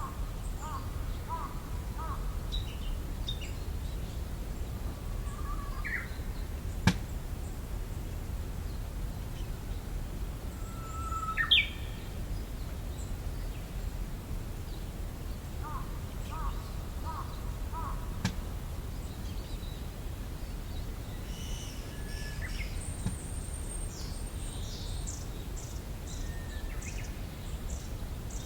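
Songbirds singing and calling in the open: several short whistled phrases, a loud rising note about a third of the way in, and a fast run of high pips near the end, with two sharp clicks in between. The singer is taken for a Japanese bush warbler, though it may be a Chinese hwamei mimicking one.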